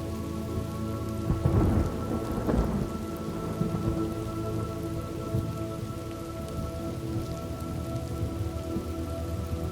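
Steady rain falling, with a rumble of thunder rolling through about a second and a half in, the loudest part. Soft held tones sound under it throughout.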